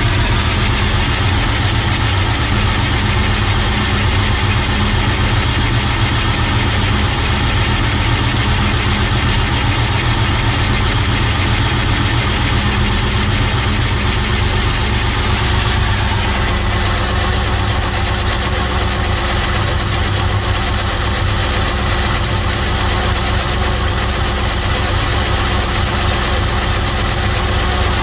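Holden engine idling steadily while it warms up after a start, with a clatter from its gear-driven camshaft drive.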